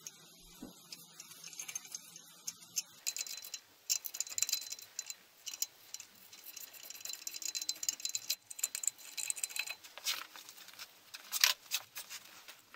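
Scattered light metallic clicks and rattles from hand tools and steel parts being handled on a metal workbench. They grow busier a few seconds in, with one sharper click near the end.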